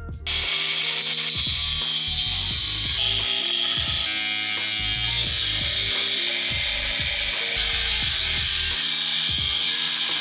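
Cordless angle grinder cutting into the thick steel of a car's strut tower, starting about a third of a second in and running steadily, with music underneath.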